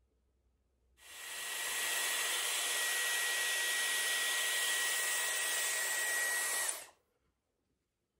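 Dyson Airwrap styler running: its motor spins up about a second in, then blows a steady rush of air with a steady high whine, and it stops abruptly near the end.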